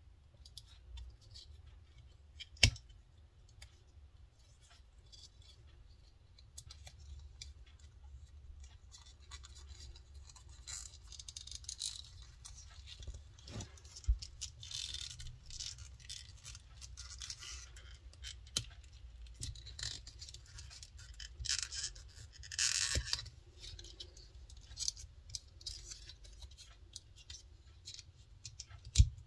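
Close handling sounds of a leather piece being fitted onto a steel binder clip: a handful of sharp metallic clicks from the clip's wire handles and jaws, the loudest about two and a half seconds in and just before the end, with stretches of leather rubbing and scraping against the clip. A low steady hum sits underneath.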